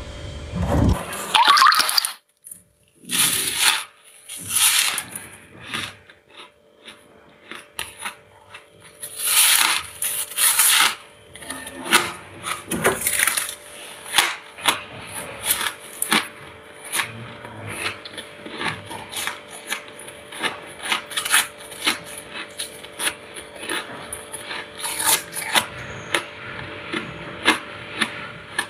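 Freezer frost crunched between teeth: a stream of sharp, crisp crunches, with a few longer crackling bursts in the first ten seconds.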